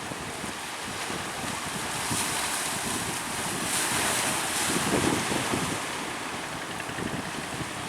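Strong wind buffeting the microphone over breaking sea surf, swelling louder for a few seconds around the middle.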